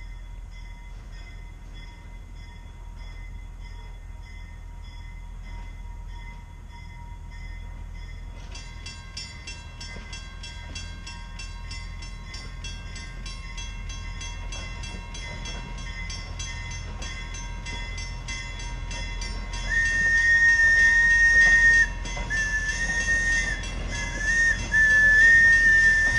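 Passenger train approaching and growing louder, with a low rumble, then its whistle blowing three long blasts on a single tone near the end, the first the longest.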